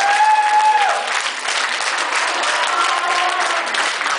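Crowd applauding steadily, with one voice calling out a long held note of cheering for about the first second.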